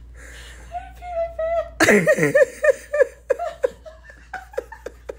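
A person laughing: a high, drawn-out vocal sound, then about a second in a burst of quick, short laughs that taper off over the next few seconds.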